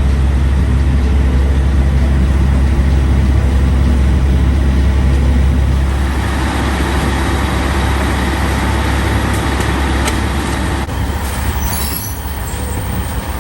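Passenger train running on the rails: a loud, steady deep rumble.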